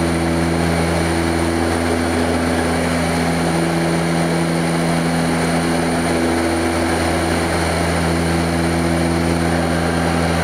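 de Havilland Canada DHC-6 Twin Otter's twin PT6A turboprop engines and propellers in flight: a steady propeller drone with a thin high turbine whine above it.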